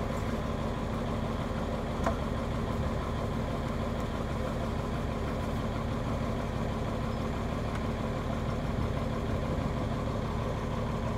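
Engine idling steadily on the drilling rig, a constant low drone, with one short sharp knock about two seconds in.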